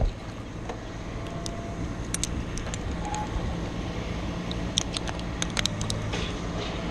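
An engine runs steadily in the background, with scattered light clicks and clinks like climbing hardware knocking together.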